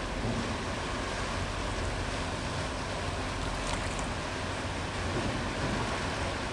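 The German Navy replenishment ship Bonn (A1413) passing close by: a steady rush of water from its bow wave and wash along the hull, with a low steady hum underneath.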